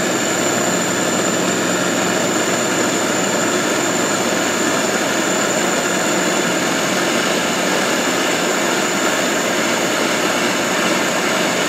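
Gas torch flame burning with a steady rush, firing vitreous enamel on a silver piece from beneath a mesh trivet.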